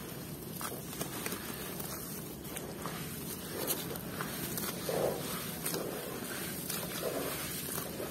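Hands squeezing and breaking up soaked clods of red dirt in a basin of muddy water: wet squelching and small splashes, with scattered crackles from the crumbling dirt and a few louder squelches in the middle.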